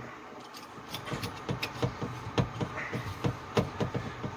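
Small metal parts of a dishwasher isolation valve clicking and tapping irregularly, several times a second, as the stem and packing nut are fitted back by hand.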